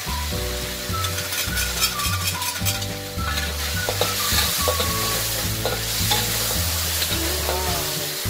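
Beef cubes sizzling in a hot wok while a metal spatula stirs and scrapes them around the pan, with a run of scraping clicks in the first few seconds.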